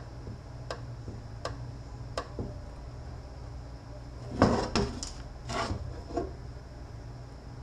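Metal transfer-case parts being handled and set down on a workbench: a clatter about four and a half seconds in, then a few shorter knocks and scrapes. Faint, evenly spaced ticks and a steady low hum run beneath.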